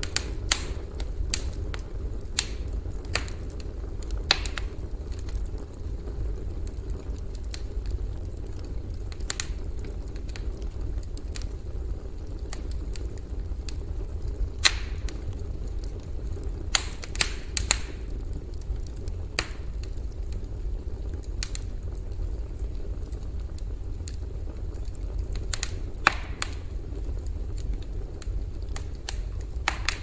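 Campfire burning: irregular sharp crackles and pops, sometimes several close together, over a steady low rumble.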